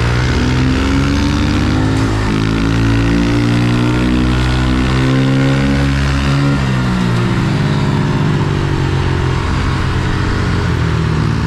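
Honda CRF110 pit bike's small four-stroke single-cylinder engine running hard under throttle. Its pitch rises as it accelerates, holds, then drops back about two-thirds of the way through as the throttle comes off.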